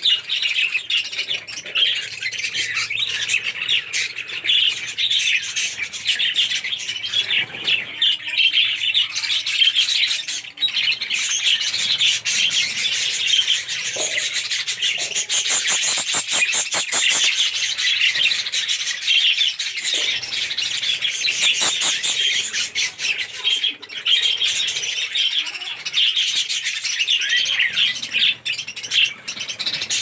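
A flock of lutino and albino budgerigars chattering and chirping without a break while feeding together on millet.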